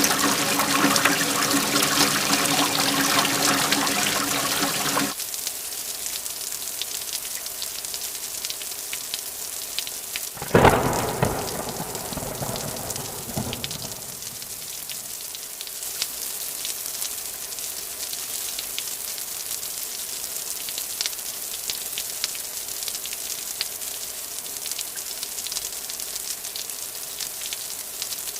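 Steady rain falling, with one sudden thunderclap about ten seconds in that rumbles away over a few seconds. Before that, a louder, heavier stretch of water noise with a steady hum in it cuts off abruptly about five seconds in.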